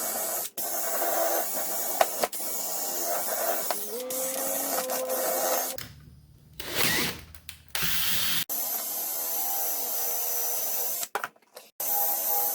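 Handheld power drill with an abrasive attachment running in several bursts, stopping and starting sharply, as rust is cleaned off an antique steel C-clamp. Its motor tone steps up about four seconds in.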